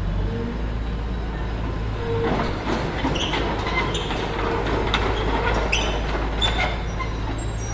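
Komatsu excavator's engine running steadily at a work site, with a run of knocks and scraping clanks from about two seconds in to near the end.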